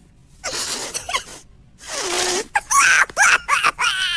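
Cartoon characters' voiced reactions: a breathy gasp and a short groan, then a run of high, squeaky squeals from Rufus, the cartoon naked mole rat. They are reacting to a foul smell.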